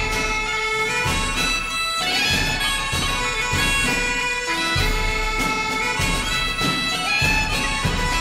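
Closing theme music: a melody of held notes over a steady beat.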